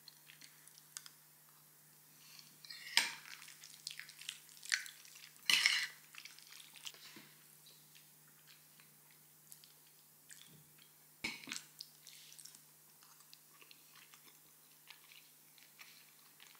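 Metal spoon clinking and scraping against a ceramic bowl as someone eats, with quiet chewing between. There are scattered sharp clinks, the loudest about three and five and a half seconds in.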